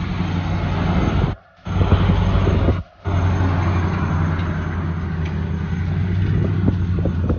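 Vehicle engine drone and road noise heard while driving: a steady low hum over rushing noise. The sound drops out briefly twice in the first three seconds.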